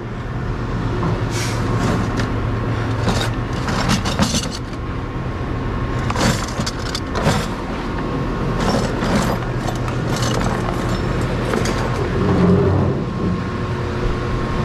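Steady low hum of running machinery or a vehicle engine, with irregular clanks and knocks as scrap metal is handled.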